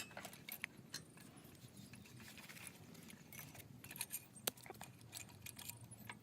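Faint, scattered metallic clicks and clinks of tools and loose engine parts being handled during engine disassembly, the sharpest about four and a half seconds in.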